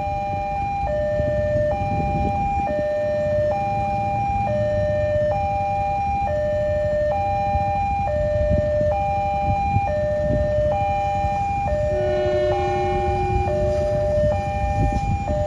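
Railway level-crossing warning siren alternating steadily between a lower and a higher tone, each held about a second, while a KRL commuter electric train (a 6000 series) rumbles past the crossing. A short horn sounds about twelve seconds in.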